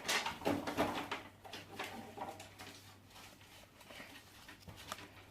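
Slime being squeezed and stretched by hand, giving irregular small wet clicks and pops, busiest in the first second or so and fainter after.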